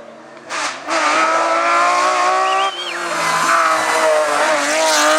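Race car engine at full throttle on a hillclimb, coming up loud about a second in; its note climbs, breaks for a gear change about two and a half seconds in, then climbs again.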